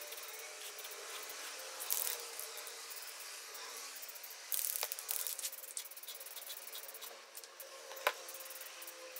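Aerosol spray can of primer hissing in short bursts, about two seconds in and again at about four and a half seconds. Near the end there is a single sharp knock.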